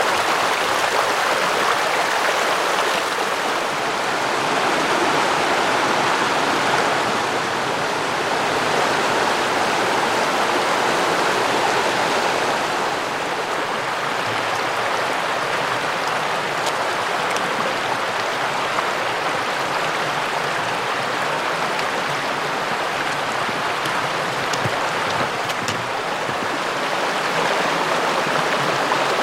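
Flowing stream, a steady rushing of water.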